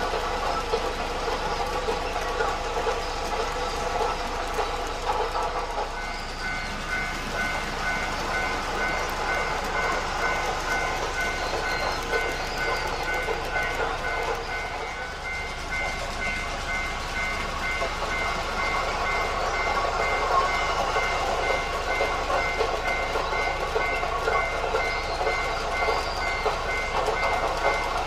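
N-gauge model train running on the layout track: a steady whirring of the locomotive's small motor and wheels. About six seconds in, an evenly repeating high ringing tone starts up and keeps going, the warning bell of a model level crossing.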